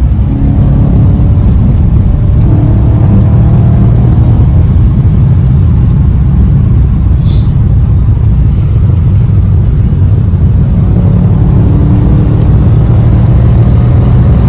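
The BMW E92 M3's 4.0-litre V8 engine and the tyre and wind noise of cruising at speed, heard inside the cabin as a steady low drone with no clear revs up or down.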